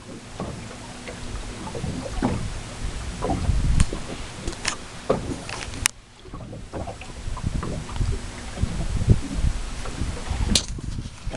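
Aboard a small motorboat on open water: wind rushes across the microphone and water splashes against the hull, with irregular low thumps and a few sharp knocks.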